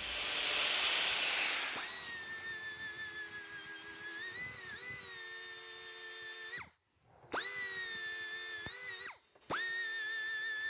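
Die grinder with a small disc cutting into the steel jaw of a C-clamp locking pliers: a high, steady whine that wavers in pitch as the disc bites. The whine winds down and stops about two-thirds of the way through, spins straight back up, and drops out briefly once more before restarting.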